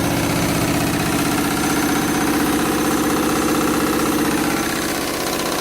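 Washing machine in its 1200 rpm final spin, with the drum whirring and the cabinet vibrating in a fast, even pulse. The machine is shaking badly and the vibration carries into the floor, a sign of a load badly off balance at full spin speed. Its hum swells and then eases a little near the end.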